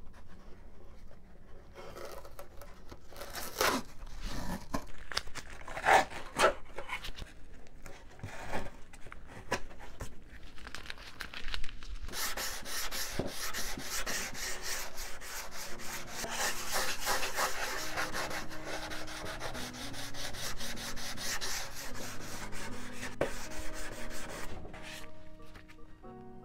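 Balsa wood being sanded with sandpaper by hand: scattered scrapes and knocks at first, then from about halfway a fast, continuous run of back-and-forth rubbing strokes. Background music with held notes comes in soon after the sanding turns continuous.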